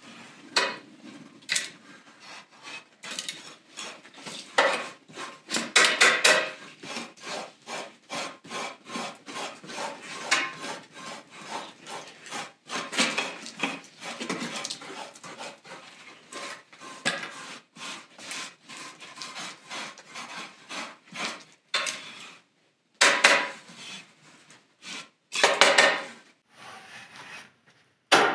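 Flat hand scrapers scraping thick wet mud off a rug in quick, irregular strokes, with occasional knocks against a metal bucket as the mud is piled in. The strokes pause briefly twice near the end.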